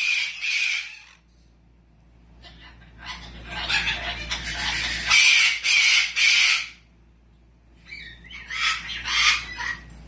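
Cockatoo screeching in three harsh bouts: a short one at the start, a long one in the middle, and another near the end.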